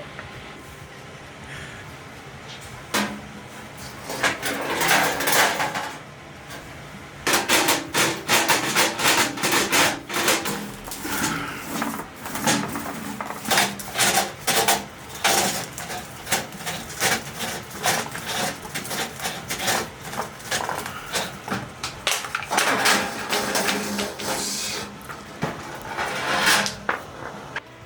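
Steel balls and rare-earth magnets clicking and tapping against a brass tuba's tubing as the magnets draw the balls along inside to pull out dents. The sound is a long run of quick, sharp metallic clicks with a few scraping stretches.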